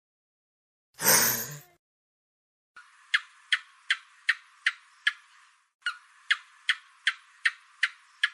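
A lizard call: a short breathy hiss, then two runs of sharp clicks at about two and a half a second, each run lasting roughly three seconds.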